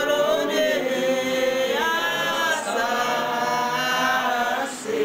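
Women singing unaccompanied, a worship song in long held notes that step from pitch to pitch.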